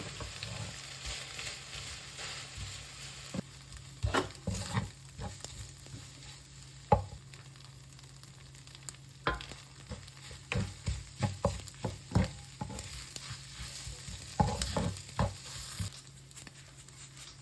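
Irregular clicks, taps and scrapes of utensils against dishes and a pan during a meal, over a faint steady low hum.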